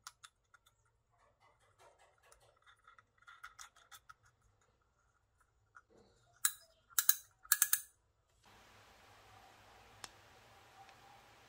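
Small parts of an old fishing reel clicking and ticking as they are handled, then three short sharp noises a little past halfway, followed by a steady faint hiss over the last three seconds.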